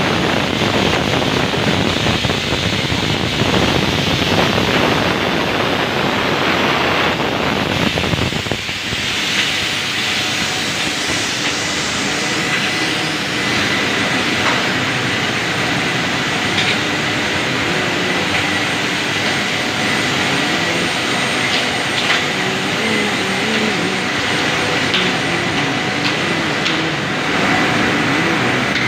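Plastic-making machinery running with a loud, steady industrial noise. About eight seconds in, the low rumble drops away, and soon after a thin steady whine sets in.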